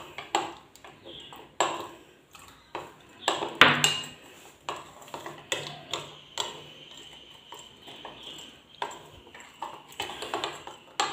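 A spoon stirring a thin yogurt-and-spice paste in a bowl, knocking and scraping against the bowl's sides in irregular clinks.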